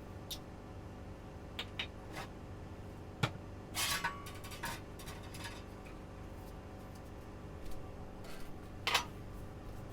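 Scattered clicks, light knocks and a short rustle about four seconds in, the sound of small hard objects being handled, over a faint steady hum.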